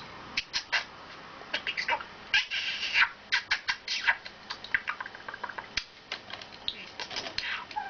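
A pet bird chattering: a rapid string of short clicks and chirps with brief pauses between them.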